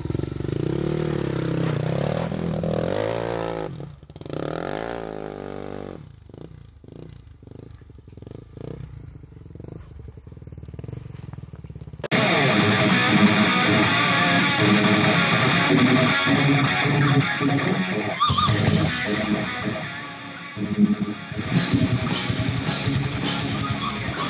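A quad's engine revving, its pitch rising and falling twice in the first few seconds, then dropping away to faint knocks. About halfway through, guitar rock music starts abruptly and runs on.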